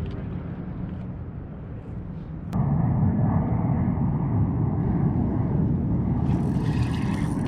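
Low, steady rumble of a distant engine, which gets louder after a sharp click about two and a half seconds in.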